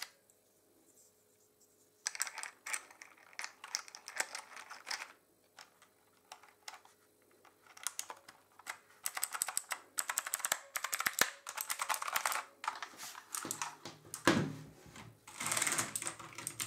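Typing on a Motospeed CK104 mechanical keyboard with clicky blue switches: rapid runs of key clicks starting about two seconds in, with a short pause around the middle.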